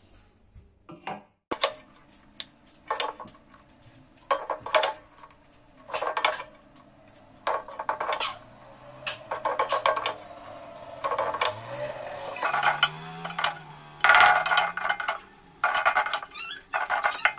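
Wooden spatula scraping and knocking against an aluminium wok while fried noodles are served out into a glass bowl: a string of short, irregular clatters, each with a brief metallic ring.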